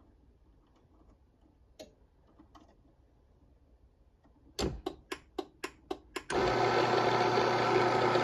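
A quick run of about eight sharp clicks, then the AC motor of a LiftMaster 3220 screw-drive garage door opener, running off its rail, starts and runs with a steady hum about three-quarters of the way in.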